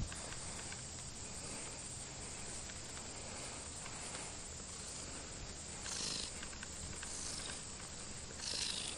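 Cat purring steadily at close range, with a couple of brief higher sounds about six seconds in and again near the end.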